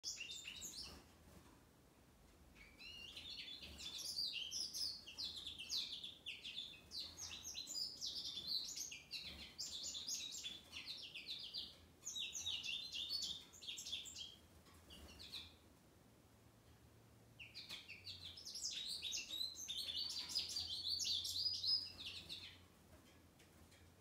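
Male American goldfinch singing: long runs of rapid, high twittering and warbling notes, in three bouts with short pauses between them.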